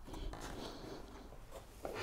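Faint handling noise of an MDF stair tread being held and shifted against its support block, with light rubbing and rustling and a short clatter near the end.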